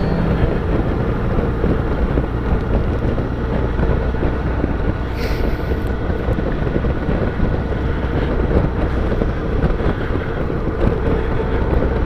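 Honda GL1800 Gold Wing's flat-six engine running steadily while the motorcycle is ridden at road speed, mixed with wind noise on the microphone. There is a short rush of hiss about five seconds in.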